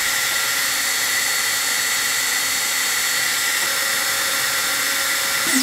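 Small cooling fan on a CNC 3018's 2.5 W laser module running, a steady whir with a few faint high whines in it.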